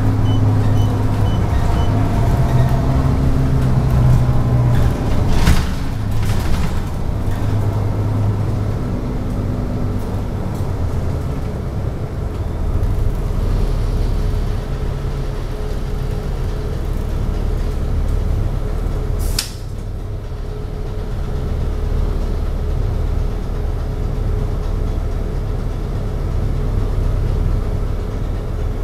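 Inside a city bus: the engine hums and shifts pitch as the bus drives and slows, then idles steadily once the bus is stopped. About two-thirds of the way through there is a short sharp hiss of air from the air brakes.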